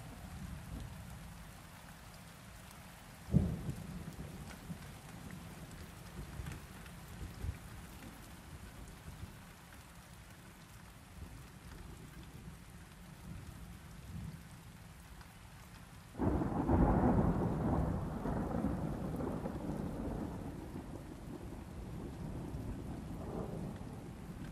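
Thunderstorm: steady rain falling, with a short sharp crack of thunder about three seconds in. Past the middle a louder peal of thunder breaks suddenly, then rolls on and slowly fades.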